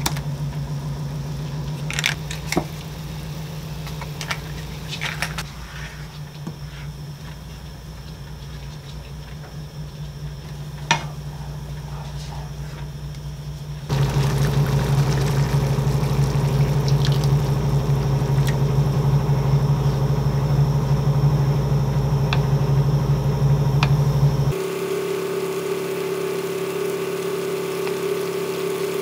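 Home cooking at a gas stove under a steady low hum: a few light clicks and taps as curry roux blocks go into a frying pan of tomato water, then liquid poured in and tomato curry simmering and bubbling as it is stirred with a wooden spoon. It gets louder about halfway through.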